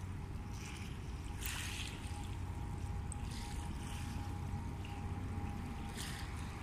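Small waves lapping and washing on the gravel riverbank, with short swishes about one and a half, three and six seconds in. Under them is a steady low rumble.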